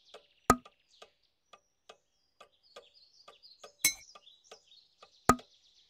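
Clock ticking steadily, two or three ticks a second, with three louder clicks among them, and faint bird chirps behind.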